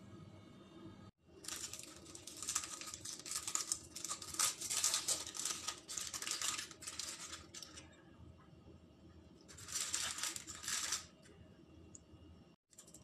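Aluminium foil crinkling and crackling as hands unwrap it from steamed rolls, in irregular bursts for about six seconds, then again for a second or so near the end.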